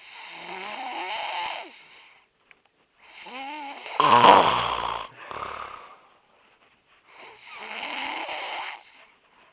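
A man snoring heavily: three snores about three and a half seconds apart, the middle one the loudest with a rough rattle in it. The uploader puts the snoring down to his having drunk too much.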